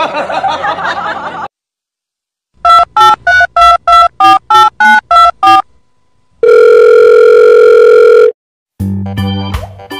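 A rapid run of about a dozen telephone keypad (DTMF) dialing beeps, roughly four a second and changing in pitch, then one long steady phone tone lasting about two seconds. Keyboard music starts near the end.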